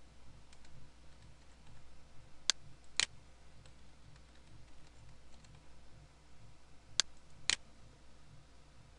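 Faint computer keyboard typing with two pairs of sharper, louder clicks about half a second apart, one pair a few seconds in and another near the end, over a low hum.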